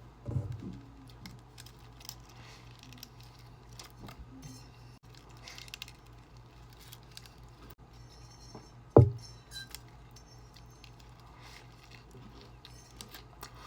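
Close-miked eating of a burrito: quiet chewing with small clicks and light clinking or crinkling, and a low thump about nine seconds in that is the loudest sound. A steady low hum runs underneath.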